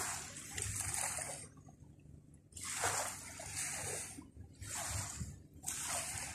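Sea water washing and splashing at the shore in repeated surges, each rising and fading over a second or so.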